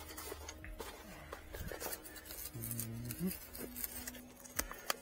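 Scattered light clicks and knocks of hands handling scooter parts and bag fittings, the sharpest about four and a half seconds in. A faint buzzing tone rises and breaks off about three seconds in.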